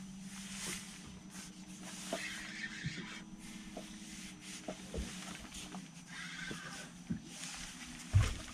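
Sounds aboard a small fishing boat: a low steady hum that fades out after a few seconds, light knocks and clicks from handling on the boat, and a heavy thump near the end.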